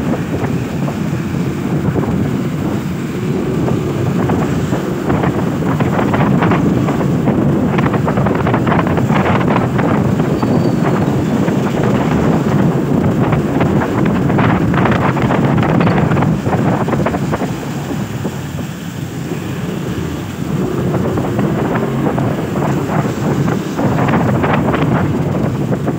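Wind buffeting the microphone of a moving motorcycle, loud and gusty, over the hiss of tyres and spray on a wet road.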